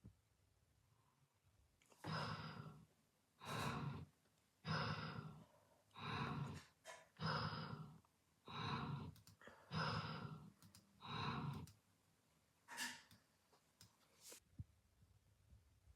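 A person snoring: about eight breathy snores in a row, one every second and a quarter or so, then two shorter ones near the end.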